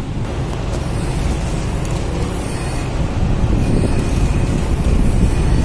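Wind buffeting the microphone over a low rumble from the docked car ferry, growing slightly louder toward the end.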